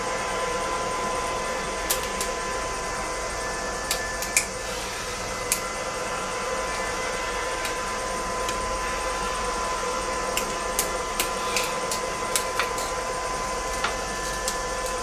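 Scattered light clicks and knocks of tools and fittings being handled while the car's LPG gas equipment is disconnected from the engine bay. Under them runs a steady hum with a thin, constant whine.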